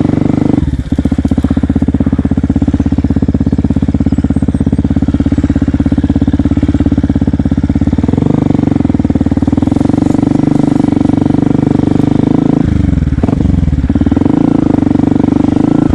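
Yamaha WR125X's single-cylinder four-stroke engine running at a steady pitch while riding off-road. The engine note drops briefly about a second in, and near the end dips and climbs back again as the throttle is eased and reopened.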